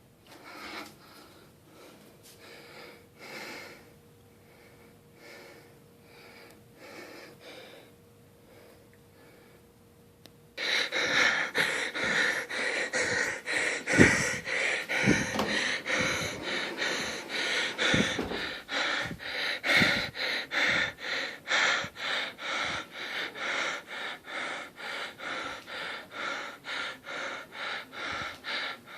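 A man breathing heavily and gasping, in short, quick, evenly spaced breaths. The breaths are faint at first and become suddenly much louder about ten seconds in, with a few low thumps among them.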